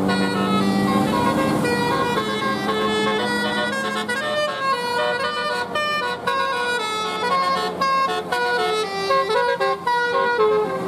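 Bus 'telolet' musical multi-tone air horn playing a quick melody of stepped notes, several a second. A low steady tone sounds under it for the first four seconds or so.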